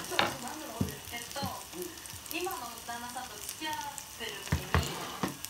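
Okonomiyaki batter sizzling on an electric hot plate, with a few sharp clicks, the loudest near the start and about four and a half seconds in.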